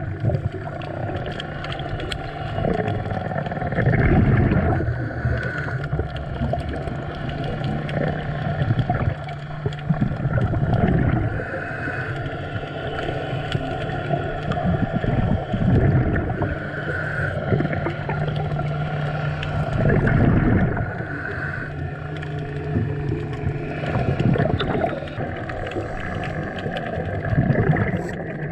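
Scuba diver breathing through a regulator underwater: exhaled bubbles burble up in a loud low rush every four to six seconds. A steady low hum runs beneath.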